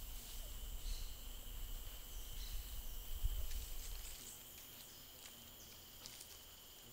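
Tropical forest ambience: a steady, high-pitched insect drone with a few faint bird chirps. A low rumble fills the first four seconds and then drops away.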